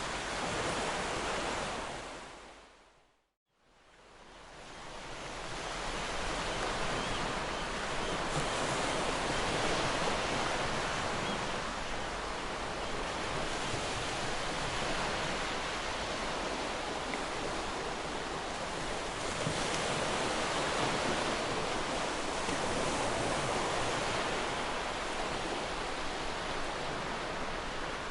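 Sea waves washing on a shore, a steady surf noise with slow swells. About three seconds in the sound fades out to a moment of silence and then swells back up over the next couple of seconds.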